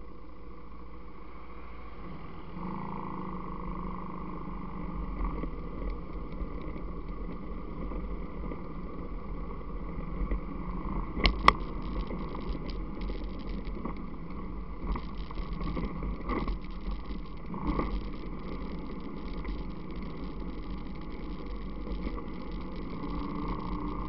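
ATV engine running while riding a rutted mud trail, its drone growing louder about two seconds in. Frequent knocks and clatters come from the rough ground, with one sharp, loud knock about eleven seconds in.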